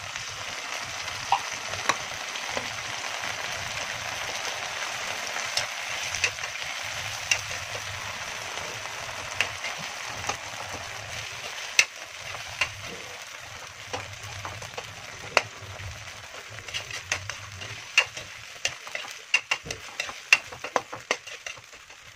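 Canned sardines sizzling in a wok with sautéed onion, garlic and tomato, while a metal spatula scrapes and taps against the wok as it is stirred. The sizzle is steady and eases off somewhat in the second half, while the spatula clicks come more often in the last few seconds.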